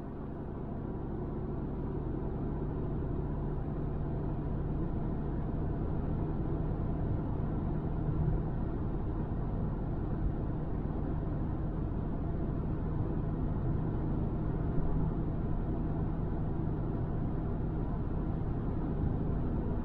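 Steady road and engine noise inside a car's cabin while driving at highway speed: a low rumble of tyres on asphalt with a faint engine hum, fading in over the first couple of seconds.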